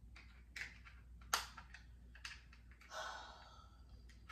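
Faint, irregular clicks and taps of a small plastic camera-shutter remote being handled and pressed, with a sigh about three seconds in.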